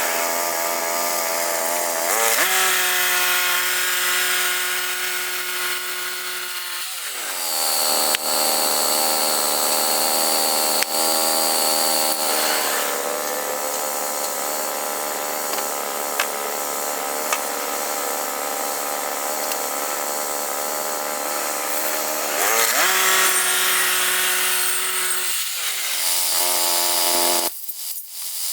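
Woodland Mills HM122 portable band sawmill running, its gas engine at speed with the band blade sawing through a log. The engine pitch drops in a glide twice as the blade takes load, and the sound changes abruptly near the end.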